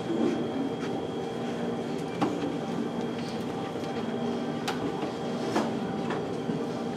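Hall room noise while people walk up to the front: a steady low hum with a faint murmur of voices, a few light knocks and shuffles of movement, and a thin steady high tone.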